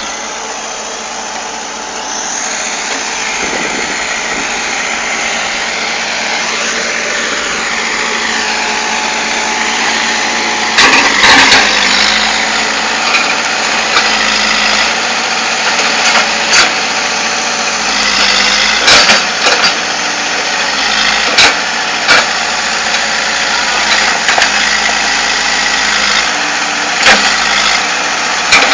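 Excavator's diesel engine running steadily, with sharp loud knocks every few seconds from about a third of the way in.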